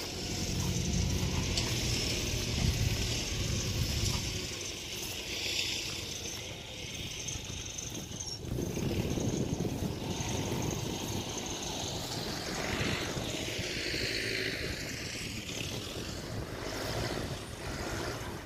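Engines of excavators and homemade tracked soil-carrier trucks running as they dig and haul soil, heard as a steady mechanical drone with irregular low rumbling.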